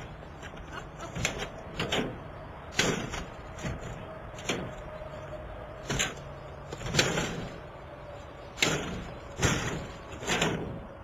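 A crowbar striking and jabbing a security screen over a window: about a dozen irregular sharp knocks and bangs as the bar hits the mesh and frame in an attempt to break through.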